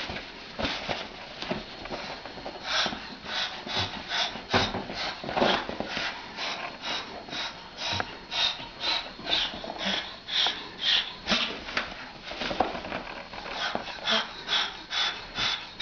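Cockatoo making a rapid series of short, huffing sounds, about two a second, starting a few seconds in.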